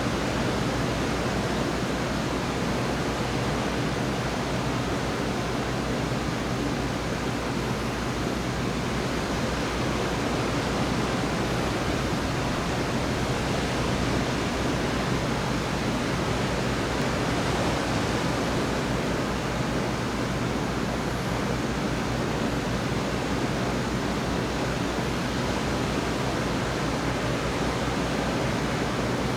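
Steady rushing noise with a low hum underneath, level throughout, with no thunderclap.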